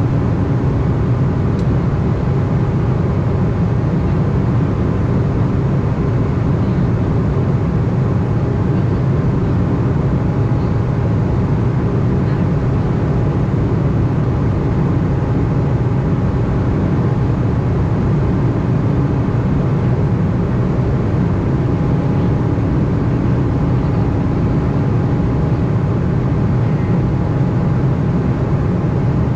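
Steady cabin drone of an Embraer E190 airliner in flight, its two CF34 turbofans and the airflow heard from inside the passenger cabin, with a faint steady whine above the low rumble.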